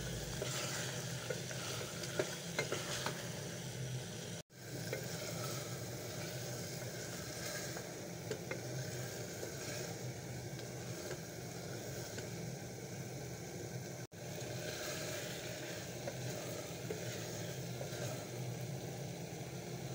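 Meat, tomato and capsicum sizzling in a stainless steel pot while a wooden spoon stirs and scrapes through it, with a steady frying hiss. The sound cuts out for an instant twice.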